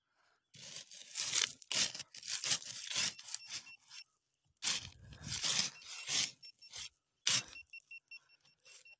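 Metal detector pinpointer probe scraping and raking through sand and gravel in a dig hole, with bursts of rapid short high beeps from the pinpointer, the sign that it is near a metal target.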